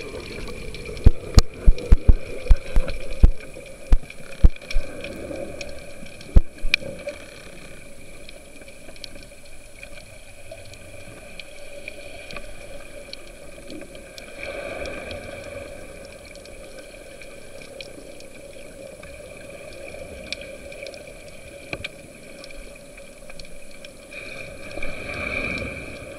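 Underwater ambience heard through a camera's waterproof housing: a steady muffled water noise with a faint constant hum. Over it comes a run of sharp loud knocks in the first few seconds, and two more a little later.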